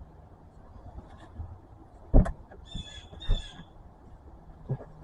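Two sharp knocks a little over a second apart, with a short high chirping between them, as tools are worked against a stuck oil drain plug.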